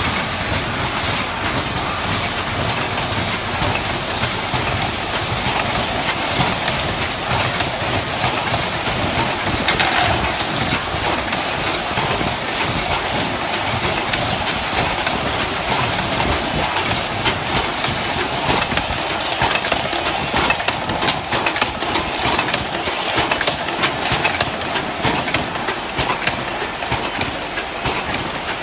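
Automatic aerosol can filling line running: a steady machine noise with a dense, continuous clicking and clattering of metal spray cans moving along the chain conveyor.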